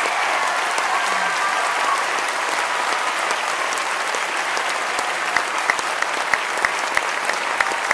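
Large audience applauding steadily. From about five seconds in, one person's claps stand out, sharp and even, about three a second.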